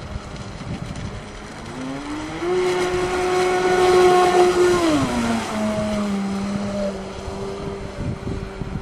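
Electric RC speedboat on a 6S LiPo running at speed: a high whine from the motor and propeller over a hiss of spray. It is loudest about four seconds in as it passes close, and its pitch drops just after as it goes by.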